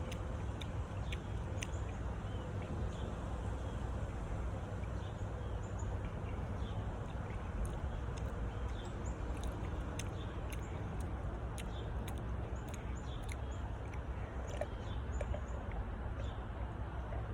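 Steady low background noise and hum, with faint scattered small clicks and chirps throughout.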